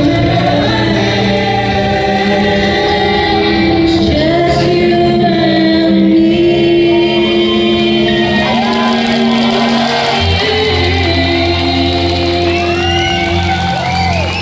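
A song: singing over amplified backing music with a steady bass, the voice gliding and bending more in the second half.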